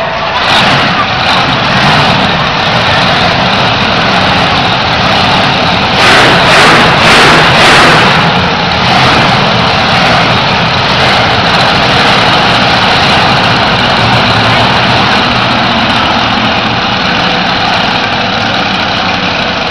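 Monster truck's supercharged V8 engine idling loudly and steadily, with a brief louder swell about six seconds in.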